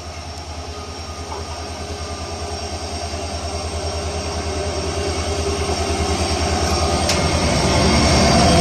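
WDP4D diesel locomotive approaching, its EMD two-stroke V16 engine giving a pulsing low hum that grows steadily louder.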